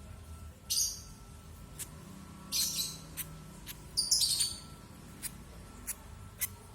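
Two-day-old lovebird chick giving short, high-pitched begging chirps while being hand-fed, in three bursts about a second and a half apart, with faint ticks between them.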